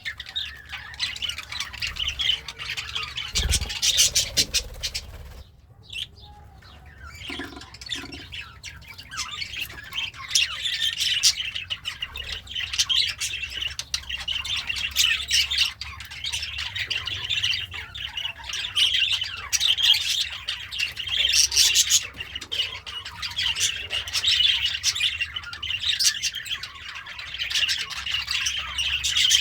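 Budgerigar chattering and chirping in a fast, continuous warble of short scratchy notes, with a brief lull about six seconds in.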